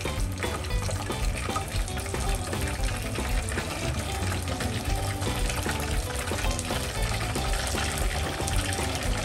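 Floured chicken pieces deep-frying in a pot of oil, a dense steady sizzle and bubbling, under background music with a steady beat.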